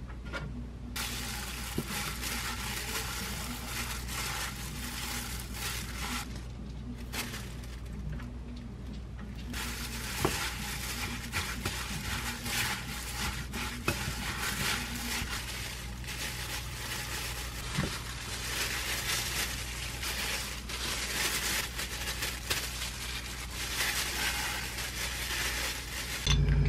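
A plastic food-prep glove crinkling and rustling as a gloved hand mixes and squeezes a rice mixture in a glass bowl, with two short pauses. A steady low hum sits underneath.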